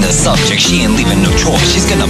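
Loud music playing continuously, with repeated sliding notes that swoop downward in pitch.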